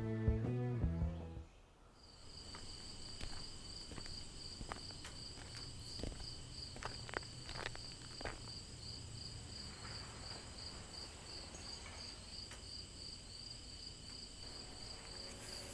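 Music fades out in the first second or so. Then an insect trills steadily, a high, fast pulsing, with scattered clicks and rustles of footsteps on leaf litter.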